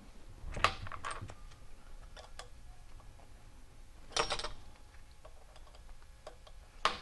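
Light metallic clicks and taps of a 3/16 Allen wrench working the Allen bolts of a pitching-machine wheel hub as they are loosened: a short cluster about half a second in, another about four seconds in, and one near the end.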